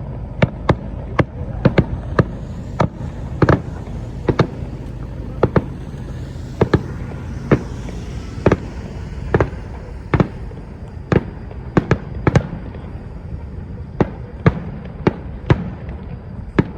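Fireworks shells bursting overhead in a steady irregular volley, sharp bangs at about two a second over a continuous low rumble.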